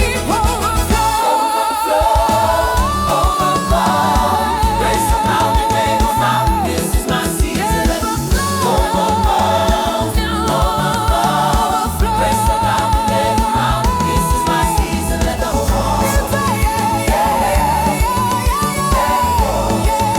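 African gospel music: a steady beat under a held, wavering melody line, the bass dropping out briefly about a second in.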